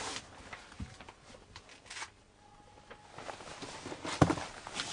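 Hands handling paper and small objects on a tabletop: scattered light clicks and rustles, with one sharp knock about four seconds in.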